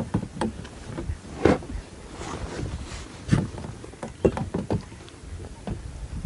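Irregular knocks and light clatter of gear being handled in a small boat, the loudest about one and a half seconds in and several close together near the end.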